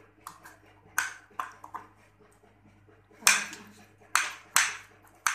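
Knife chopping roasted eggplant flesh on a ceramic plate, the blade striking the plate in sharp clicks: a few light ones early, then three louder ones past the middle.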